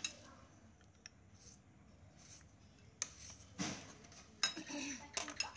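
Chopsticks and a spoon clicking lightly against a metal pot and a bowl as noodles are lifted out and served: a few scattered clicks, busier in the second half.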